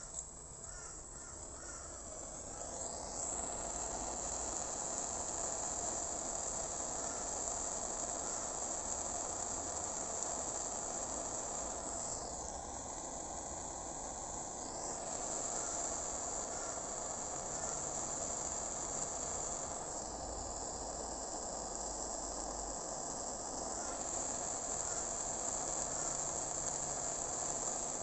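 Steady hiss of a handheld gas torch flame heating brass wire joints for silver soldering. It grows louder about two to three seconds in.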